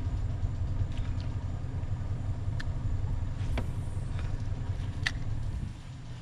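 Steady low rumble of a boat engine idling, with a few faint clicks scattered through.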